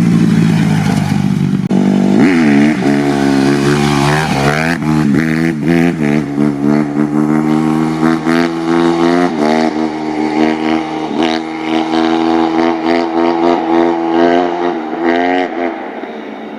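2007 Honda CRF150R dirt bike's single-cylinder four-stroke engine, first held at high revs, then revved up and down again and again in quick throttle blips while being ridden. It grows somewhat quieter near the end.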